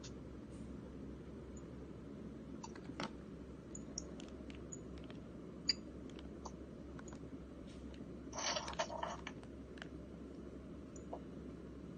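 Quiet background with a steady low hum, scattered faint light clicks and a short rustling burst about eight and a half seconds in.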